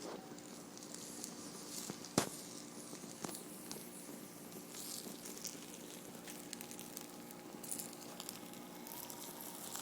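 Small fire crackling and sizzling as two plastic wristwatches burn, with scattered faint pops and one sharper crack about two seconds in.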